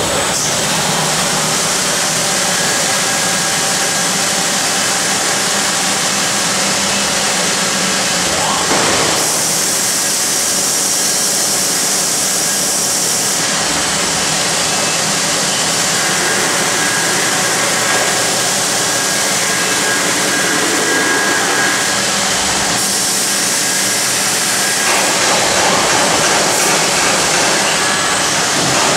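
Robot-held grinding head running against a metal sheet while finishing a weld seam: a loud, steady grinding hiss with a motor whine under it, its tone shifting several times as the tool moves along the seam.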